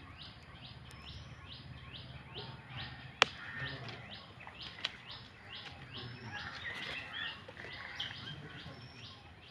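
A small bird calls over and over, a short high rising note about three times a second, against a low background rumble. A sharp click a little after three seconds is the loudest sound, with a fainter one near five seconds.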